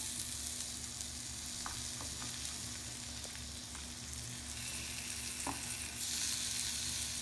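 Semolina-coated rawas (Indian salmon) steaks shallow-frying in oil in a nonstick grill pan: a steady sizzle, with a few faint taps of the spatula as the pieces are turned to fry the second side.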